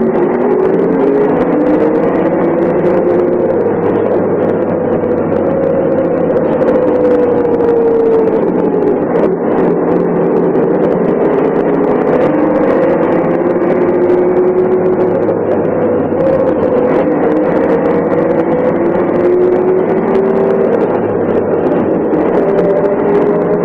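Diesel engine of a MAN SL 202 city bus with a ZF manual gearbox, running steadily under way. Its pitch rises and falls several times as the revs change.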